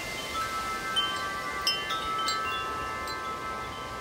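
Large tubular wind chime ringing in gusty wind, its tubes struck irregularly a few times so that several tones overlap and ring on, over a faint rush of wind.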